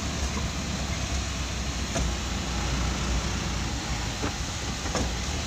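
Steady engine hum and road noise of a moving delivery vehicle, heard from inside its cab, with a few faint clicks.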